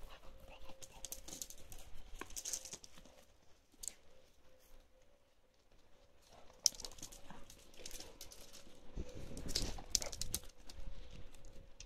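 Chocolate Labrador and puppies romping: paws scuffling and pattering on grass and paving slabs, with scattered short rustles and clicks, busiest toward the end.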